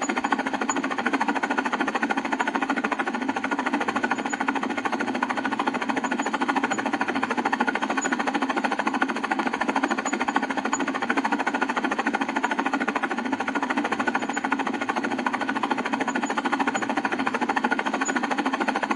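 Helicopter running steadily, its rotor and engine making a fast, even chopping with little deep bass.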